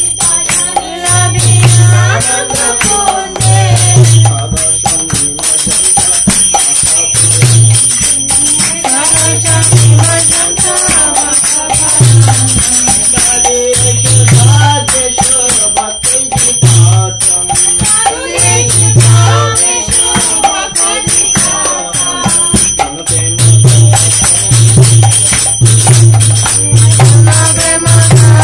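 Music with a repeating low drum beat under a wavering melody, and jingling bells.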